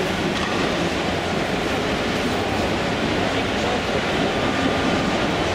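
A model steam locomotive running along layout track hauling a short train of vans, under the steady din of a busy exhibition hall.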